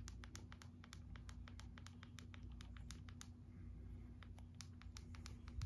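Faint, quick, irregular clicks and light scratching from fingers handling a smartphone, several a second, over a faint steady low hum.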